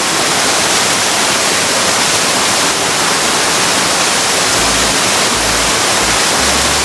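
Waterfall rushing loudly and steadily close by: a dense, unbroken roar of falling water.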